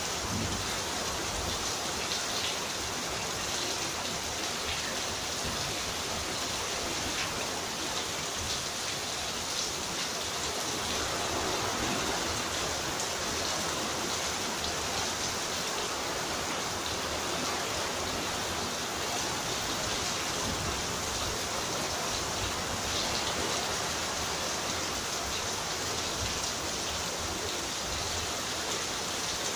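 Steady heavy rain falling during a kalbaishakhi (nor'wester) storm, an even continuous hiss with no let-up.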